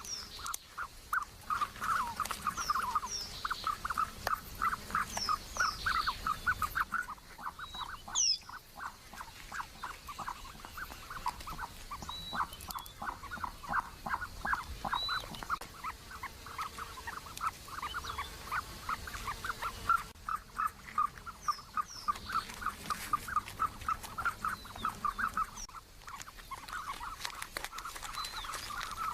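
Ostrich calling in a long run of short, rapid calls, several a second, with small birds chirping higher over it. The run breaks off briefly twice.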